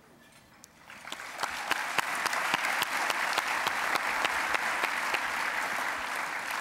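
Audience applauding: the clapping starts about a second in and runs on as dense, even clapping, easing off slightly near the end.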